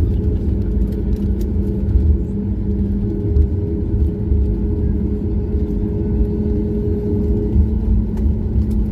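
Steady low rumble and drone of an airliner's engines heard inside the passenger cabin, with a steady hum over it; the higher part of the hum drops away about a second before the end.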